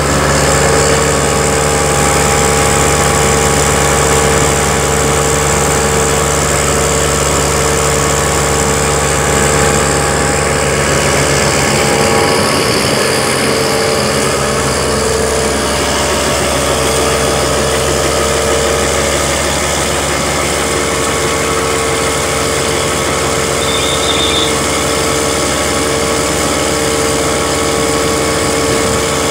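Mill grinding wet corn grain and packing it into big bags, running steadily together with a tractor engine. It makes a constant drone with a steady high hum over it.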